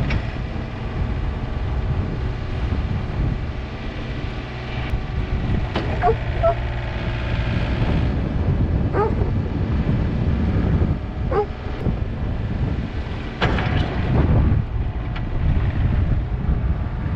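Yanmar B37 mini excavator's diesel engine running steadily, with a few short metallic squeaks about a third and two-thirds of the way through and a louder surge near the end.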